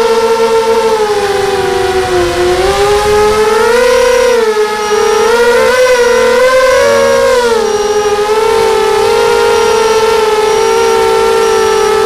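QAV250 racing quadcopter's brushless motors and propellers whining, heard from the onboard camera, the pitch dipping about two seconds in, wavering up and down through the middle and settling lower and steady near the end. Faint short high beeps repeat about twice a second in the second half.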